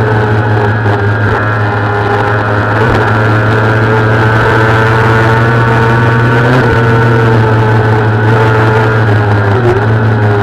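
Kawasaki ZX-6R's inline-four engine running hard at high revs, its pitch held nearly steady under racing throttle, with a short dip in pitch near the end.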